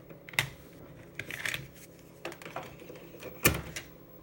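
A 3.5-inch floppy disk being handled and pushed into an Amiga A1000's drive: a run of small plastic clicks and rattles, then a loud clunk about three and a half seconds in as the disk seats, over a faint steady hum from the running computer.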